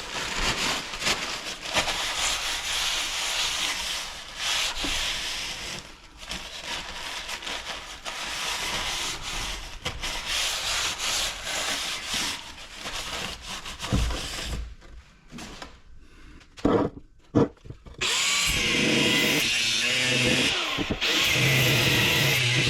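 A power tool cutting into the thick steel shell of a scrap compressor, in rough stop-start passes with a few knocks about two-thirds of the way through. Near the end the tool runs steadily with a motor hum.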